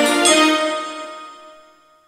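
Game show winner jingle ending: a final chord struck about a quarter second in rings out and fades away over about a second and a half.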